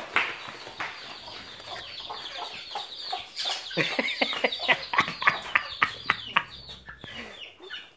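Chickens clucking: scattered short calls, then a quick run of them in the middle that thins out near the end.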